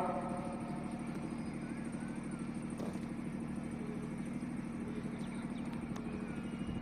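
An engine idling steadily: a low hum with a fast, even pulse.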